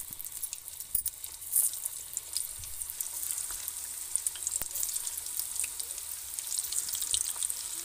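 Karemua (water spinach) leaf pakoras deep-frying in hot oil in a kadhai: a steady sizzle with scattered faint crackles.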